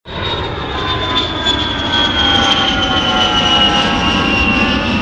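Jet airliner flying past: a steady rushing engine noise with a high whine that slowly falls in pitch.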